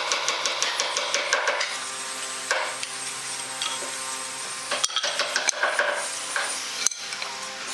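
A wooden marking gauge scratching along a pine batten as its pin scribes a line, in quick rasping strokes at first, with light wooden clicks as the gauge and stick are handled and a sharp knock near the end.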